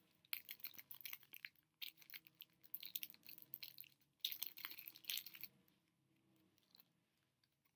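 Shopkins toy packaging being handled and opened: irregular crinkling and crackling of plastic with small clicks, stopping about five and a half seconds in.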